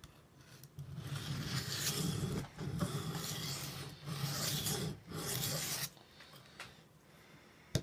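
Large knife blade stroked across a fine-grit sharpening stone: about four long rasping strokes, each roughly a second, then a pause and a short click near the end.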